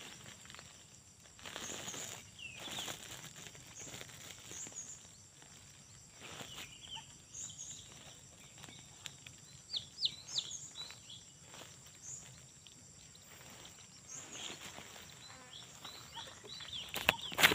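Rustling and handling in grass and leaf litter, with short high chirps scattered throughout over a steady high insect hum; a louder rustling clatter near the end.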